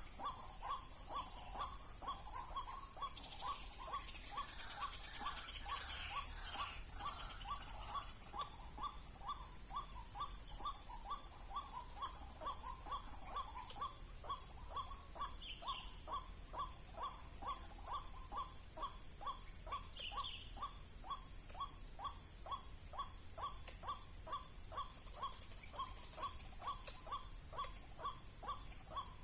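White-breasted waterhen calling, one harsh note repeated at a fast, even rhythm throughout, with a few short chirps from other birds and a steady high hiss behind it.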